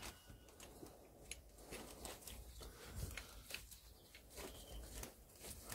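Faint, scattered light clicks of steel gears and a synchro hub being handled and shifted on a Land Rover Series gearbox mainshaft.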